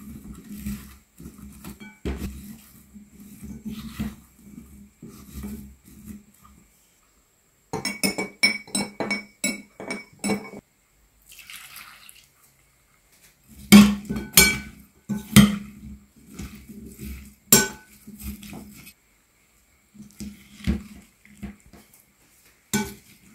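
Kitchen sounds of food being mixed in a glass bowl: soft rustling and knocking of sliced onions stirred with a silicone spatula, then a run of quick clicks and, a few seconds later, several loud sharp clinks of glass and utensil against the glass bowl. A brief trickle of liquid being poured comes between them.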